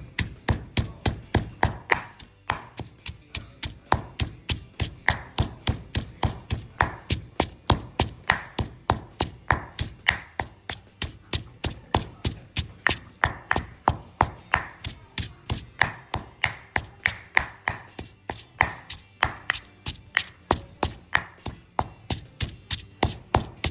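A granite pestle pounds cilantro root and black pepper in a granite mortar, making a steady run of stone-on-stone thuds at about four strokes a second. The ingredients are being pounded into a paste.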